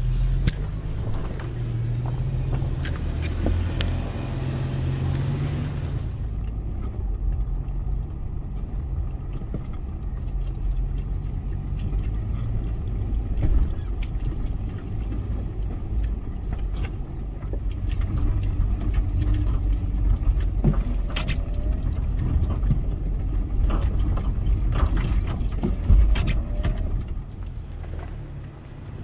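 A 4x4 off-road vehicle driving over a rough mountain dirt track: a steady low engine and tyre rumble with scattered knocks and clicks from stones and bumps. A rushing hiss over it stops about six seconds in.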